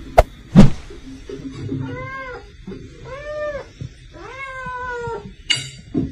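Domestic cat meowing three times, drawn-out calls that each rise and fall in pitch, the last one the longest. Two sharp clicks sound in the first second, the second one loud.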